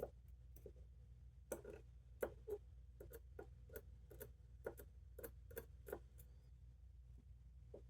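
Faint, irregular clicks and taps, about a dozen, mostly in the middle few seconds, from a Medeco biaxial cam lock and small tools being handled while the lock is taken apart. A low steady hum lies underneath.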